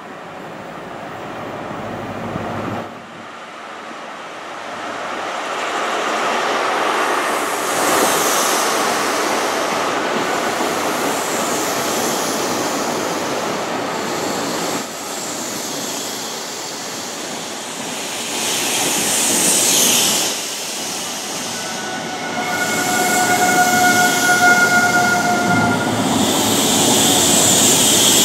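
First Great Western High Speed Train (Class 43 diesel power car and Mk3 coaches) running into a station platform, its engine and rolling wheels growing louder as the coaches pass close by. About three-quarters of the way through, a steady high squeal of braking wheels sounds for a few seconds.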